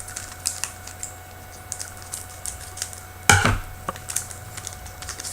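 Trading cards being handled, shuffled and slid against each other: a string of light clicks and snaps, with one louder crackle about three seconds in.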